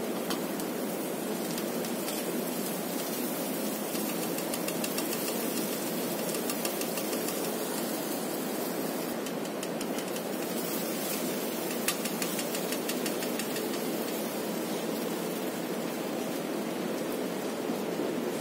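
Steady rushing noise, with a few light taps and one sharper knock about twelve seconds in as soaked poha is tipped and shaken from a steel colander into a steel kadai.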